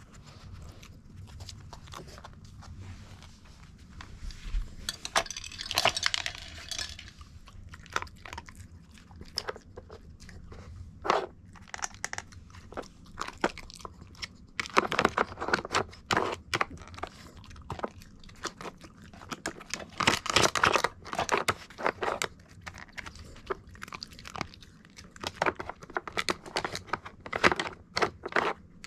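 Mame shiba (small Shiba Inu) crunching and chewing hard dog treats, in several bouts of quick crackly bites with quieter gaps between.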